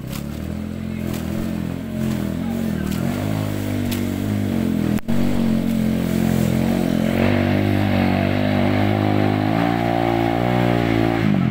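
Enduro dirt bike engine riding up a trail toward the microphone, the throttle rising and falling, getting louder as the bike nears.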